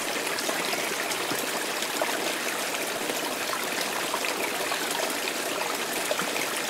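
Water trickling and splashing steadily, an even rushing hiss flecked with tiny drips.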